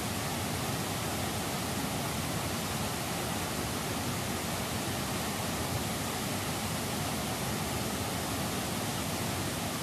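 Fast-flowing white water rushing and churning, a steady, unbroken wash of noise.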